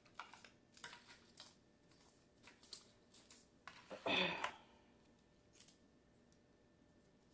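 Plastic cutlery and its plastic wrapper being handled: faint crinkling and small clicks, with a louder crackling rustle about four seconds in.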